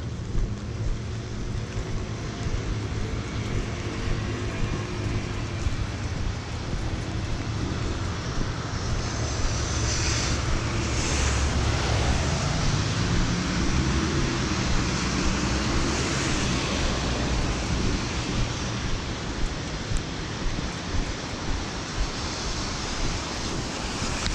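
Steady rain and wind noise on the microphone over city traffic on wet roads; a vehicle's engine swells and passes around the middle.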